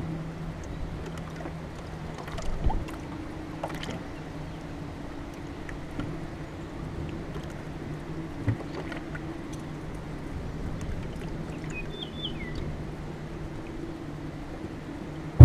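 A boat's motor runs with a steady low hum. A few faint clicks and a short high bird chirp come about twelve seconds in.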